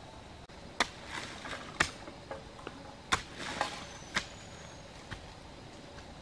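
A hoe chopping into soil, about five sharp strikes roughly a second apart, with loose earth scraping and shifting between the strikes.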